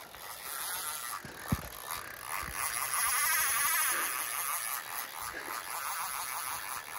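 Fly reel's drag buzzing as a hooked Atlantic salmon pulls line off, loudest a few seconds in, over a steady hiss. A single low thump about a second and a half in.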